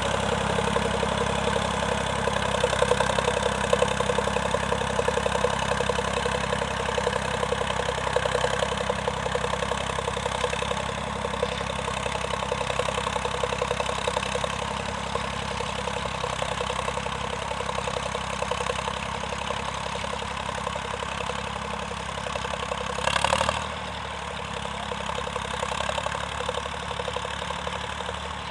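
Vintage farm tractor engine running steadily at a low, even speed, with a fast, regular beat. Near the end comes a brief loud rush of noise, after which the engine sounds a little quieter.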